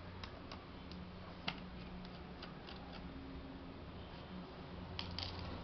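Scattered light clicks and taps of a laptop's small parts and tools being handled as it is taken apart for repair, the sharpest about a second and a half in and two more near the end, over a steady low hum.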